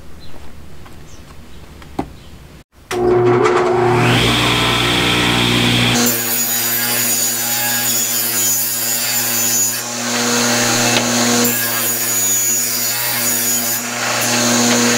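Table saw ripping pressure-treated wood pickets to width. The saw starts about three seconds in, then runs with a steady hum while the blade cuts through the boards.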